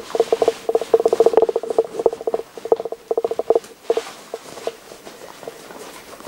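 Plastic hydration bladder squeaking and rubbing against the nylon of an 8Fields hydration carrier's pouch as it is pushed inside: quick runs of short squeaks for about four seconds, then fewer squeaks and some rustling.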